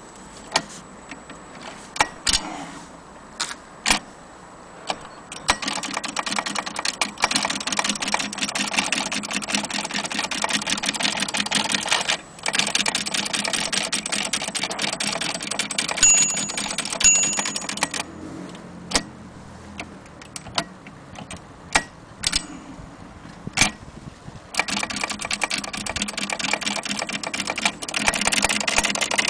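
Mechanism of a 1927 Mignon index typewriter clicking: a few separate clicks, then long stretches of rapid, continuous clicking and rattling, broken by spells of single clicks. Two short high pings come about halfway through.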